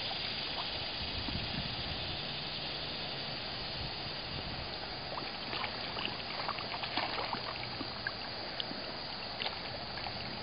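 Pond water trickling steadily, with many small sharp clicks and light splashes from about halfway through.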